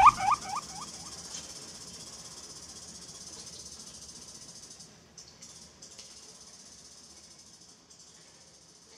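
A steady high hiss slowly fading out as a homemade electronic track ends, with a run of short rising squeaks in the first half second.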